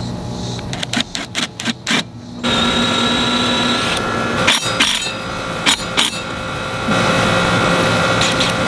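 DeWalt cordless drill running in stretches, drilling into fiber cement board to fasten a metal mounting bracket. A quick run of sharp clicks about a second in, then the motor's steady whine, broken by more clicks midway and starting again near the end.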